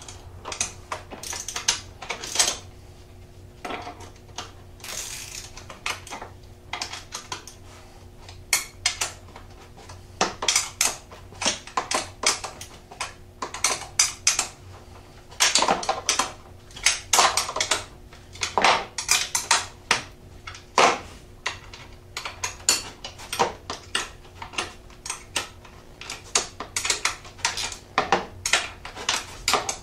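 Hand wrenches clicking and clinking against the steel bolts and nylon lock nuts of a foot peg extender as they are tightened down: many short metallic clicks in irregular clusters.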